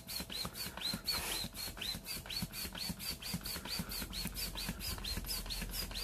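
Hand air pump inflating a vinyl gym ball: rapid, even pumping strokes about four a second, each with a short high squeak of air.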